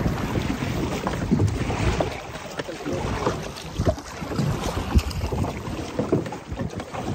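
Paddles splashing and water slapping a large canoe crossing choppy lake water, with gusty wind buffeting the microphone, as the crew paddles hard into a headwind. Uneven knocks and splashes come through the wind throughout.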